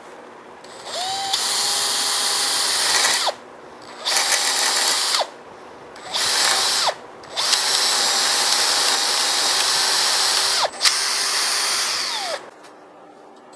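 Cordless drill boring a hole into the end of a steel shaft, in five runs with short pauses between them. Each run starts with the motor whine rising as it spins up and ends with it dropping as it stops, under the loud grinding of the bit cutting metal.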